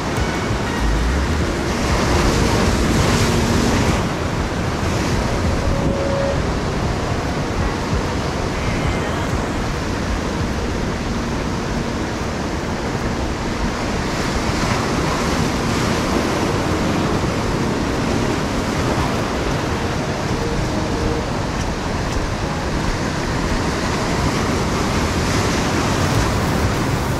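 Rough sea surf washing and breaking over shore rocks in a continuous rush, swelling louder a few times as bigger waves come in.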